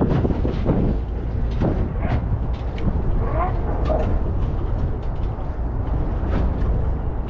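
Wind rumbling on the microphone aboard a boat at sea, with a steady low drone, scattered knocks and splashes, and a faint steady hum that comes and goes.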